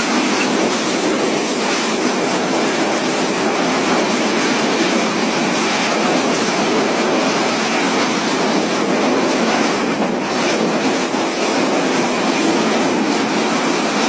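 Tropical-cyclone wind and driving rain: a loud, steady rush of noise that holds without a break.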